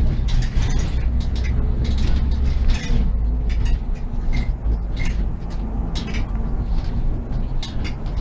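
Interior of a SOR NB 12 city bus under way: the steady low drone of the engine and drivetrain, with frequent short clicks and rattles from the bus's fittings.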